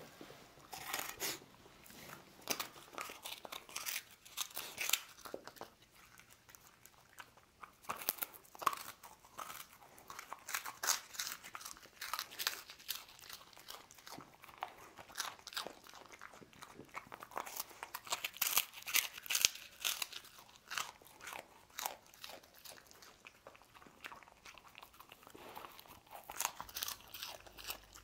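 A dog biting and chewing puffed rice biscuits: irregular runs of crisp, dry crunches with short pauses between mouthfuls.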